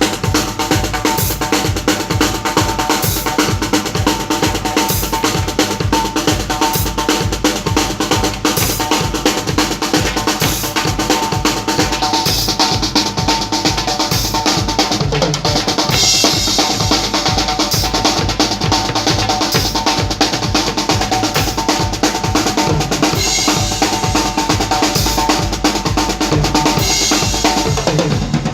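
Drum kit played continuously at a sound check: a rapid, steady bass-drum beat under snare hits and rolls, with cymbal washes swelling twice midway.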